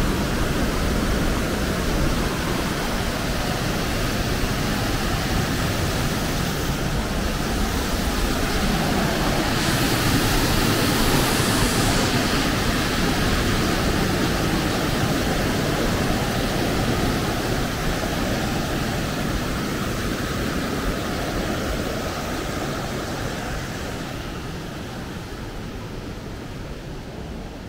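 Waterfall rushing steadily, a little stronger near the middle and fading gradually over the last several seconds.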